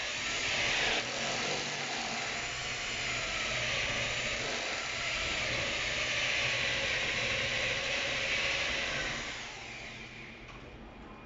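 Corded electric drill with a hole saw cutting a hole up through the ceiling: a steady, high whirring grind that winds down about nine and a half seconds in.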